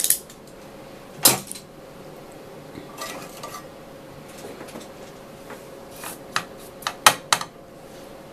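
Small metal tools clinking and tapping on a workbench during hand soldering: scattered sharp clicks, one about a second in, a few around three seconds, and a quick cluster near the end, the loudest of them about seven seconds in.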